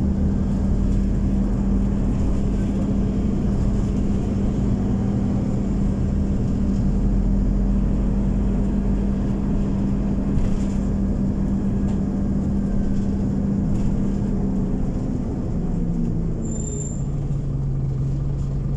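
Scania OmniCity city bus on the move, heard from on board: a steady engine and drivetrain hum over road noise, its pitch stepping down near the end. A short high beep sounds once, late on.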